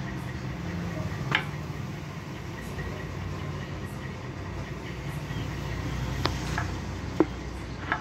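A few short, sharp budgerigar chirps over a steady low rumble: one about a second in and three near the end, one of them a quick falling note.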